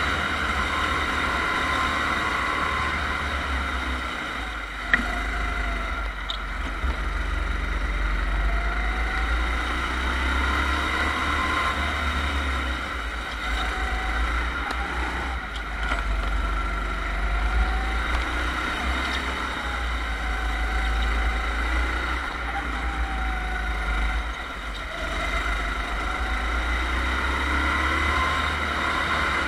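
Go-kart engine running under the driver's seat, heard from the kart's own onboard camera, its pitch rising and falling as the kart brakes and accelerates through corners, over a heavy low rumble. A single sharp click about five seconds in.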